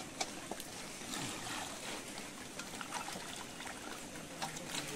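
Water sloshing and trickling in a metal basin as a plucked chicken is rubbed and rinsed by hand, with a few small splashes.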